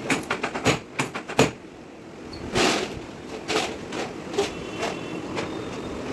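Chiropractic drop table clicking and knocking: a quick run of sharp knocks in the first second and a half, a louder rustling thud a little later, then single knocks about every half second.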